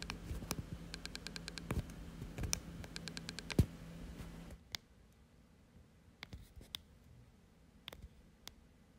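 Faulty Taptic Engine of an iPhone 11, recorded through the phone's own microphone, making runs of quick, faint clicks as the volume is stepped with the volume button held. Clicks like these show the Taptic Engine is not working correctly. About four and a half seconds in the background hum drops away and only a few isolated clicks remain.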